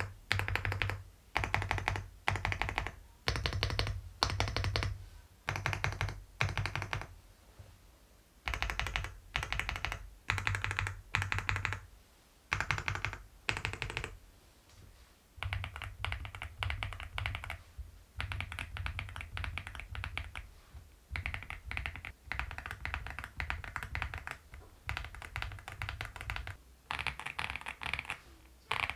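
Keys of an Aula F75 mechanical keyboard being pressed. In the first half, stabilized long keys are pressed in short rapid runs with brief pauses between them. From about halfway, keys are pressed in steady, continuous rapid clicking.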